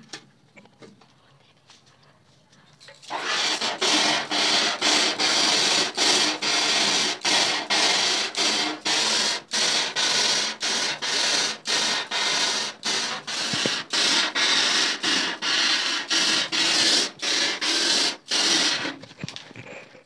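Water jet from a hand-held spray nozzle hissing against a screen-printing screen as it washes out the emulsion to bring the stencil clear. It starts about three seconds in, dips briefly about twice a second, and stops a second or so before the end.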